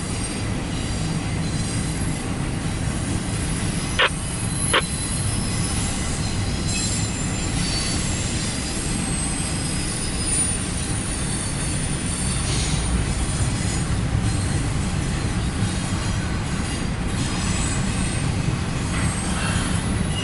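CSX intermodal freight train rolling past with a steady rumble and intermittent thin, high wheel squeal. Two sharp clicks come about four seconds in, less than a second apart.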